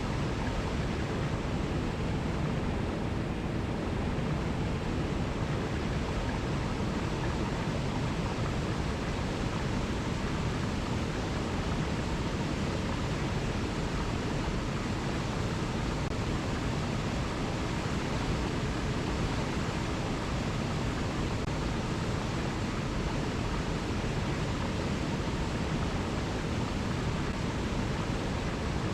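Steady rushing of an Alpine mountain river flowing over cascades, an even, unbroken water noise.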